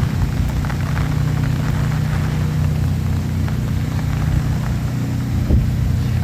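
Car cabin noise while driving: a steady low engine and road drone, with scattered light ticks on top.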